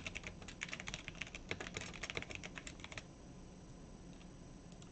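Typing on a computer keyboard: a quick run of keystrokes that stops about three seconds in.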